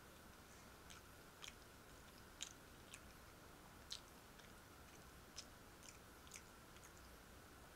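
Quiet mouth sounds of a person chewing food: about a dozen soft, irregular wet clicks and smacks over a faint steady hiss.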